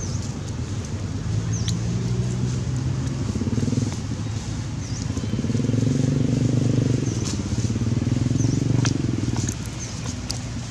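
An engine drones steadily, its pitch swelling and easing off over a few seconds. Short high chirps and a few sharp clicks come through now and then.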